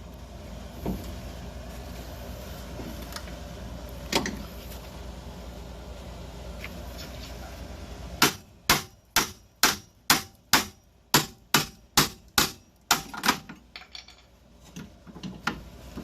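Hammer striking a 2014 Jeep Patriot's rear hub assembly to knock it off the spindle: a couple of lone knocks, then a quick run of about a dozen sharp strikes, two to three a second, fading to lighter taps near the end.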